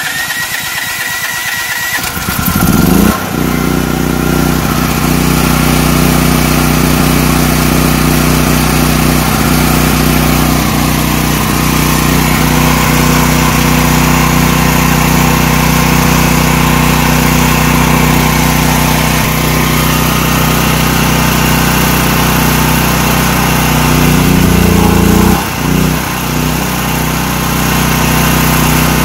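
DuroMax XP12000EH generator engine, converted to run on natural gas, cranked by its electric starter for about three seconds, then catching and running steadily. About 25 seconds in the running note briefly falters, then runs on.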